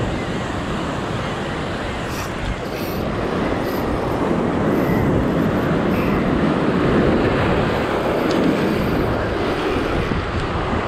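Heavy surf breaking over a rocky shore, with wind buffeting the microphone: a steady roar that swells louder around the middle.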